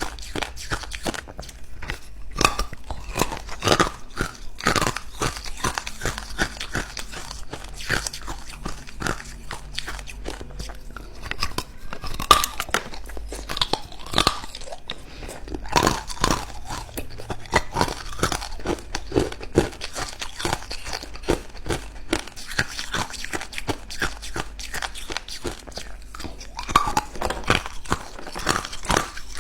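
Ice cubes being bitten and chewed close to the microphone: a continuous run of sharp, irregular crunches and cracks.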